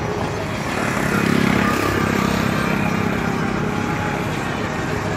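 A motor vehicle's engine running as it passes along the street, growing louder about a second in and easing off after about three seconds, over steady traffic noise.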